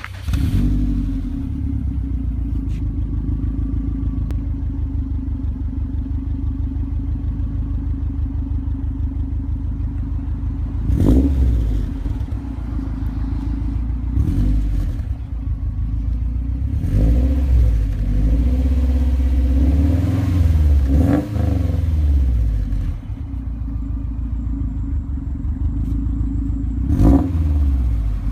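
Subaru WRX STI's freshly rebuilt 2.5-litre turbocharged flat-four engine idling steadily, blipped several times into brief revs that rise and fall back to idle.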